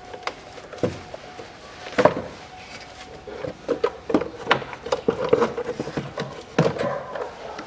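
2012 Kia Sportage's plastic air filter housing being worked loose and lifted out of the engine bay: a run of irregular plastic knocks, clicks and rubbing, with a sharp knock about two seconds in, a dense clatter in the middle and another sharp knock near the end.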